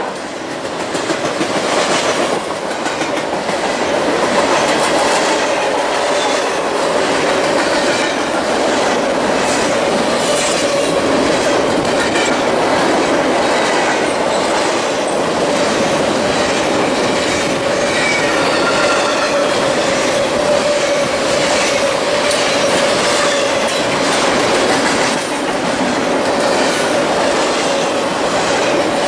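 Double-stack container freight train rolling past, its cars' steel wheels clicking over rail joints in a steady rumble, with occasional faint high wheel squeal. The noise grows louder over the first few seconds, then holds steady.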